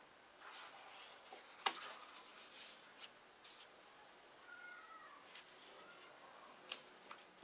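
Light clicks and knocks from small plastic caps and a plastic container being handled on a workbench, the sharpest about two seconds in. A faint, short high-pitched animal call glides down and up about halfway through.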